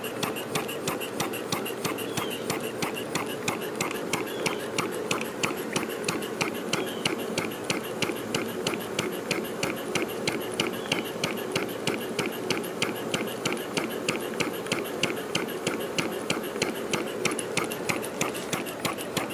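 Homemade piston steam engine running on low-pressure compressed air, a steady quiet ticking beat of about four strokes a second over a constant hiss of escaping air.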